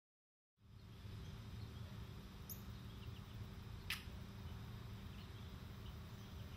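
Faint outdoor ambience after a brief moment of silence: a steady low rumble with small high chirps, and a single sharp click about four seconds in.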